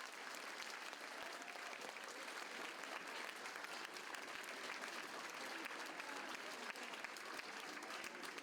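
Audience applauding, a faint, steady patter of many hands clapping.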